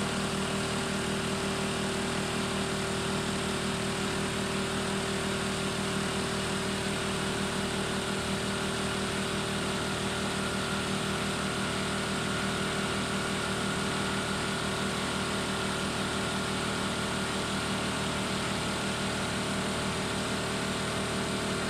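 Motor-driven pressure-test pump running steadily while it pressurises an oil filter toward its 25 bar test limit, a continuous mechanical drone with a fast even pulse; a faint higher tone joins in about halfway through.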